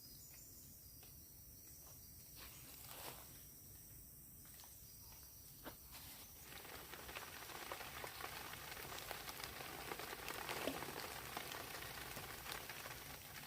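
Rain in the forest: at first scattered drops ticking, then from about six seconds in a denser, louder patter of rain, over a steady high chorus of insects.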